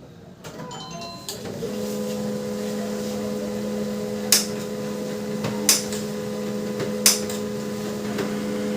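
Canon LBP 2900 laser printer warming up after being switched on. Its drive motor starts about two seconds in with a steady hum, and a sharp click comes about every second and a half. The printer runs this way after a repair that, in the owner's view, has cured its loud noise problem.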